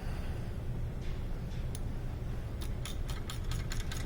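Ratchet wrench clicking quickly and evenly as a brake caliper slider pin is turned in, starting a little past halfway through. A steady low hum runs underneath.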